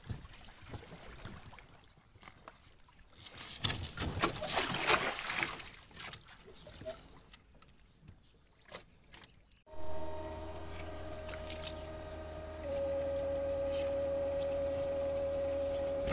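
Cast net thrown from a boat, with splashing and sloshing water as the net and line go into the river, loudest about four to five seconds in. About ten seconds in this gives way abruptly to a steady hum with a held tone.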